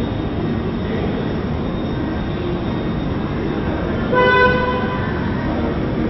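Steady rumbling traffic-like background noise, with one short horn toot about four seconds in.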